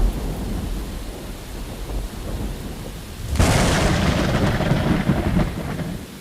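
Thunder sound effect: a low rumble dies away, then a sharp thunderclap about three and a half seconds in rolls on as rumbling for a couple of seconds before falling off.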